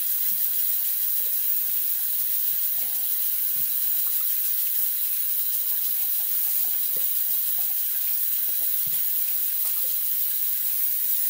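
Bathroom sink tap running steadily into the basin while a shaving brush is rinsed under it.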